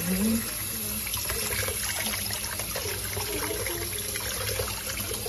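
Tap water running steadily from a gooseneck faucet, splashing over a newborn's head and into a sink during a hair wash.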